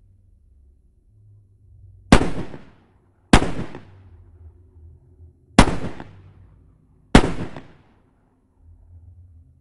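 Four handgun shots fired one after another, unevenly spaced, each a sharp crack that dies away quickly, over a faint low rumble.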